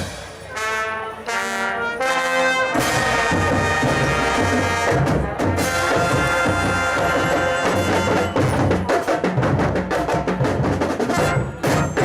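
Marching brass band playing, with trumpets and trombones over drums. Near the start a short horn phrase plays with the drums out, and about three seconds in the full band comes back in with the drums.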